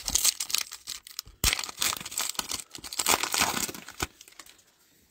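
A Panini Mosaic football card pack torn open by hand, its wrapper crinkling and crackling for about four seconds.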